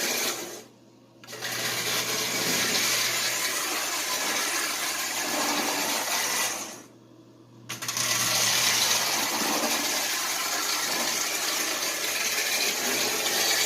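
Marx 897 toy electric train locomotive running on track, its freshly cleaned motor whirring steadily with a low hum. It cuts out twice for about a second, near the start and about halfway through, then runs again.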